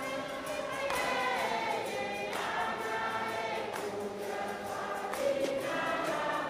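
A choir singing: several voices holding long chords that change every second or two.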